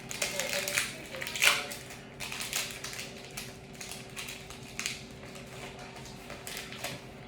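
Foil Pokémon booster pack wrapper crinkling and being torn open, with the cards inside handled, in irregular crackles and rustles. The loudest crackle comes about a second and a half in. A faint steady hum runs underneath.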